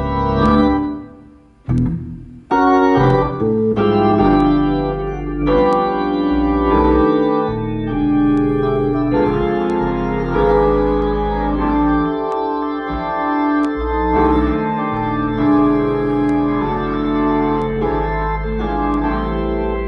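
Organ played on a keyboard: held chords over a sustained bass line. The playing drops away briefly about a second in, then resumes with new chords.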